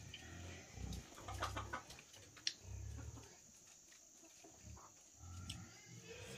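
Chickens clucking faintly in short, low calls, with a few sharp clicks between them.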